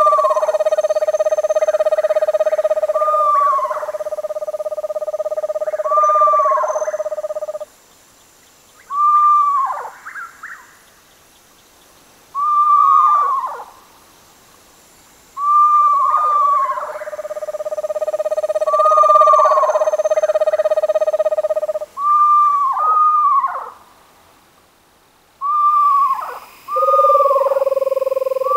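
Screech owls (Megascops) calling: repeated short notes that rise briefly and then drop steeply in pitch, some runs laid over long, steady trills held for several seconds, with short pauses between bouts.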